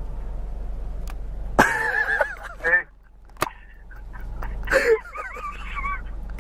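A person's voice calling out twice in drawn-out, wavering, wordless calls, with a sharp click between them.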